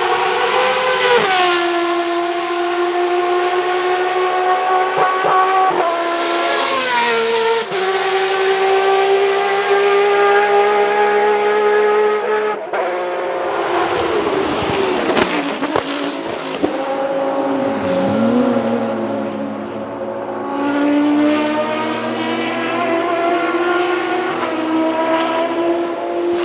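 Dallara SP1's Judd GV4 4.0-litre V10 racing engine at high revs: the pitch climbs through the gears with short drops at each upshift. It breaks off abruptly about halfway, then falls in a long sweep and climbs again steadily toward the end.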